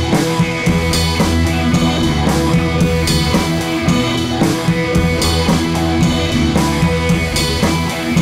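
Background rock music with electric guitar and a steady drum-kit beat.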